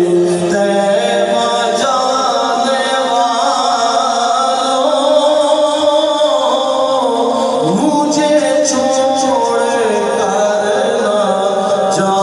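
Solo male voice singing a naat, an Urdu devotional poem, unaccompanied, in long held melodic lines that bend and glide between notes.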